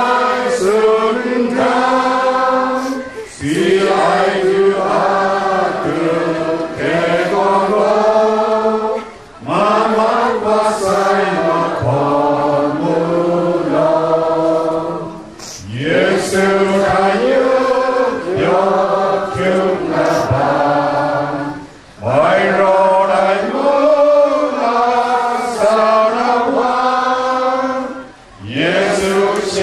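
A large congregation of men and women singing a slow hymn together, in long phrases of about six seconds with a short pause for breath between each.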